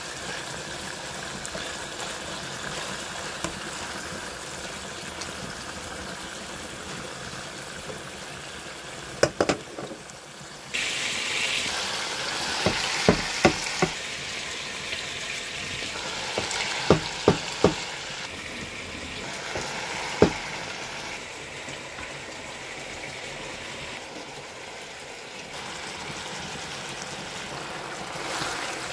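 Chicken pieces sizzling in olive oil in a frying pan, a steady hiss that grows louder and brighter about a third of the way in. Through the middle come a dozen or so sharp clicks and knocks in small clusters.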